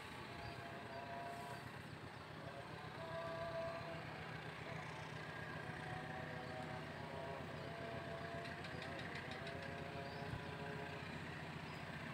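Distant diesel locomotive engine running as it hauls a passenger train: a steady low drone, with faint tones coming and going above it.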